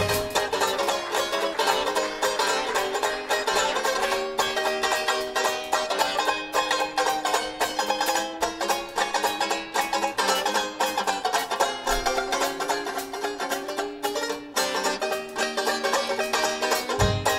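Banjo solo in a traditional jazz tune, strummed in fast, even chord strokes, with the bass and drums dropped back so the banjo plays almost alone.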